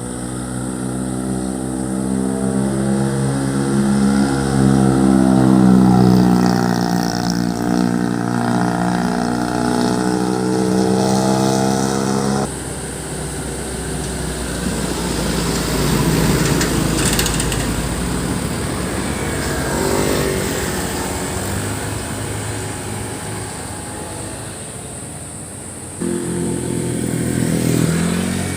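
Loud, growling aftermarket exhausts of road vehicles going by, a deep engine note bending in pitch as the first one passes. The sound changes abruptly twice, about twelve seconds in and near the end, as one passing vehicle gives way to another.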